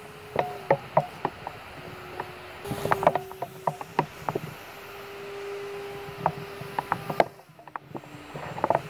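Electric motor and propeller of a small foamboard RC airplane (FliteTest "A" power pack) buzzing in flight at a steady pitch that shifts a little now and then, with scattered sharp clicks throughout.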